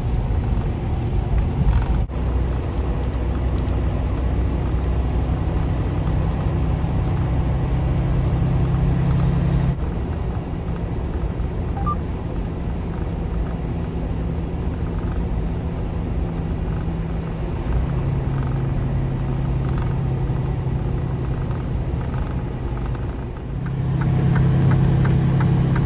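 Semi-truck diesel engine droning steadily while the truck drives down the highway, with road rumble underneath. The engine note falls away about ten seconds in, comes back, then dips and rises again near the end.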